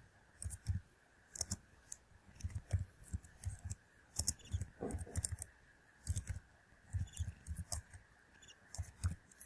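Computer keyboard typing: irregular bursts of key clicks, several a second with short pauses between, over a faint steady background tone.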